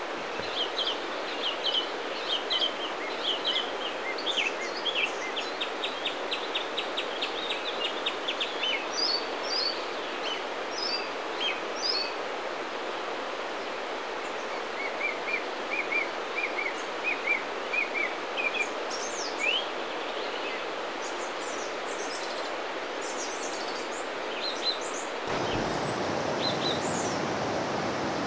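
Several songbirds singing in woodland, rapid trills and scattered chirps over a steady background hiss. About 25 seconds in, the sound switches to the louder, even rush of a shallow wild river running over stones and gravel.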